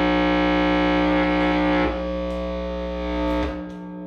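Loud, steady buzzing hum coming out of a guitar amplifier through a distortion/overdrive pedal. It is the unwanted noise that enters the signal chain with this pedal. About two seconds in it steps down in level, and near the end its low, deep part cuts out as the setup is changed.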